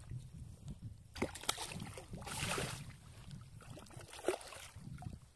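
Hooked walleye thrashing in shallow, grassy water at the shore edge, making several short splashes. The longest splash comes about two and a half seconds in.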